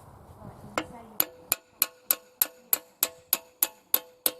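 A hammer striking metal in a steady rhythm, about three blows a second, starting about a second in, each blow leaving a short metallic ring.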